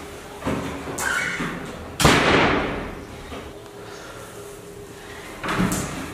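A loud thump about two seconds in that dies away over about a second, with softer knocks before and after it.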